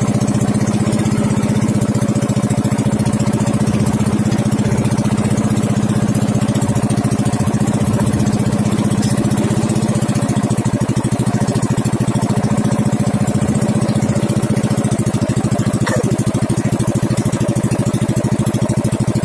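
Engine of a motorized outrigger boat (bangka) running steadily as the boat moves along, a loud, even engine note with no change in speed.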